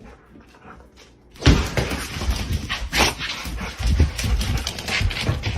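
A dog vocalising, starting suddenly and loudly about a second and a half in and going on unevenly after that.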